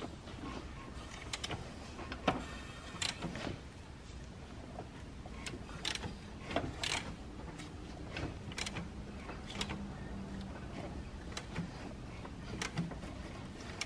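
BMW S54 straight-six being turned over by hand at the crankshaft pulley through a full revolution, with scattered irregular clicks and light knocks.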